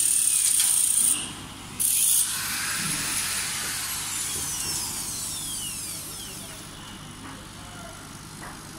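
Steel tape measure being pulled out and dragged across the metal slats of a laser cutter's bed: a loud scraping hiss for about a second, a second short scrape about two seconds in, then fainter sliding with falling squeal-like tones that fade out.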